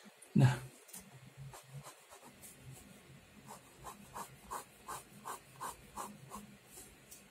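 Pen sketching on paper: a run of short, quick strokes at about three a second. A single loud knock comes about half a second in.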